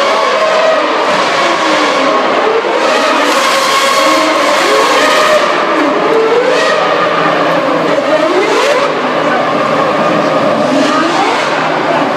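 A field of 2012 Formula One cars' 2.4-litre V8 engines at high revs, several engine notes overlapping and repeatedly rising in pitch then dropping as the cars accelerate and change gear.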